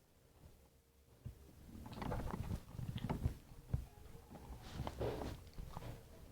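Close-up chewing and mouth sounds of someone eating pisang goreng (fried banana), starting about a second in as irregular crackly, smacking noises with a few sharp clicks.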